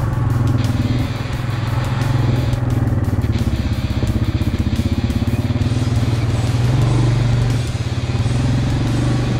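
A Yamaha Kodiak 700 ATV's single-cylinder four-stroke engine running steadily while riding, with a low hum and rapid firing pulses, under background music.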